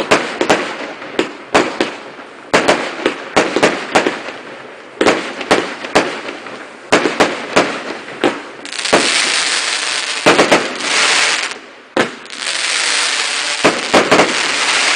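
Fireworks going off. For about eight seconds there is an irregular run of sharp bangs, several close together at a time. Then come two long stretches of dense crackling hiss, each about three seconds, with a few more bangs between and after them.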